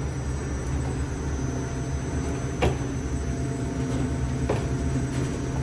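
Continuous conveyor fryer running with a steady low machine hum and a faint high whine, with a sharp click about two and a half seconds in and a fainter one near the end.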